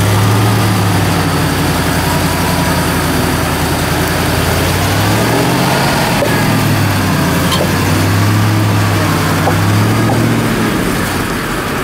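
Modified ZIL-131 6x6 trial truck's engine running at low revs while the truck crawls over rough ground. The revs rise and fall a few times, dipping about five seconds in and picking up again near the end.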